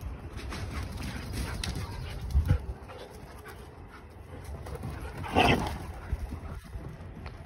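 Dogs playing together on grass, with soft rustling and scuffling. One dog gives a single short, loud vocal sound about five and a half seconds in, and there is a low thump near two and a half seconds.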